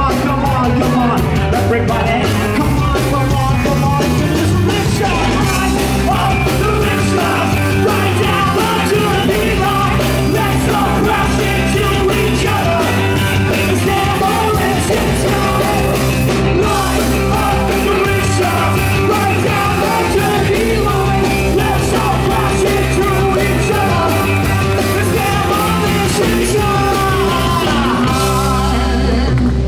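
Live rock band playing loudly, electric guitar and bass under a lead singer who yells and sings into a microphone.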